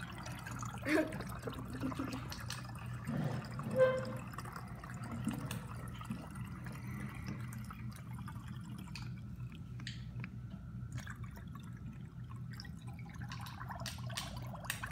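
Root beer being poured through a funnel into a brown glass bottle, liquid trickling and dripping as the bottle fills, over a steady low hum.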